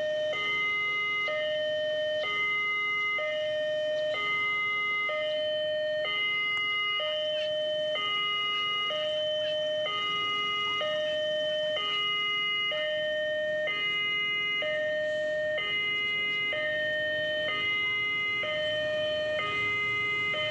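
Railway level-crossing warning alarm sounding, an electronic two-note chime alternating high and low, about one cycle every two seconds: the signal that a train is approaching the crossing.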